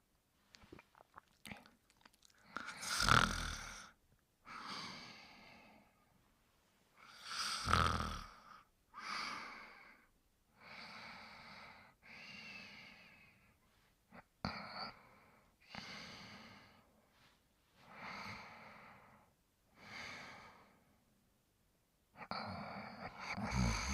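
Snoring: slow, repeated breathy snores on the in- and out-breath, one every one to two seconds, with two louder ones about 3 and 8 seconds in. A louder, fuller sound starts near the end.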